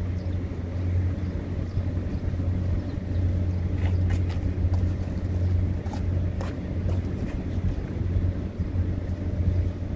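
Steady low engine drone, with a few short clicks and knocks.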